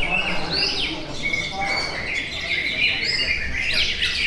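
Many caged contest songbirds singing at once: a dense, unbroken chorus of rapid chirps and quick whistled sweeps.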